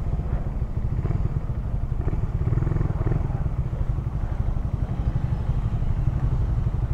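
Suzuki Raider R150 Fi's single-cylinder four-stroke engine running steadily while the motorcycle rolls at low speed.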